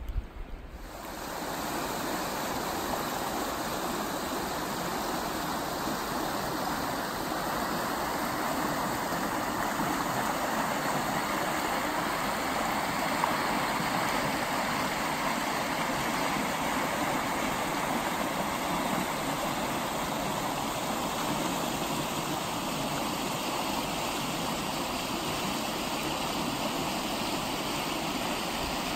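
River water rushing over shallow rapids, a steady rush that comes up about a second in.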